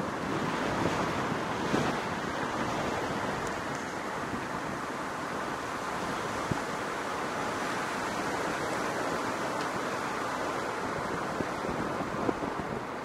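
Steady rushing road and wind noise of a car driving along, with some wind on the microphone, dropping off near the end.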